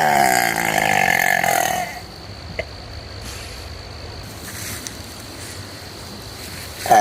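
A young girl's long, loud deliberate burp, drawn out for about two seconds with a falling pitch. A second burp starts right at the end.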